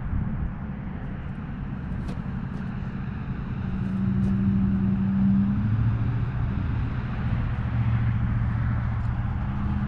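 Road traffic: a vehicle driving past on a nearby road, a steady tyre and engine rumble. Its engine hum grows louder about four seconds in and holds for several seconds.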